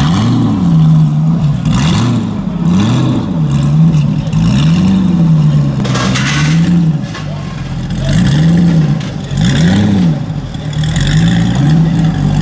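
Mazzanti Evantra's V8 engine revving in repeated short throttle blips, the pitch rising and falling about every second and a half, as the car is eased along a transporter ramp.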